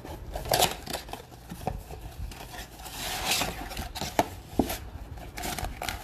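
Hands handling and opening a cardboard trading-card box: irregular scraping and rustling of cardboard with light knocks, loudest about half a second in and again around three seconds in.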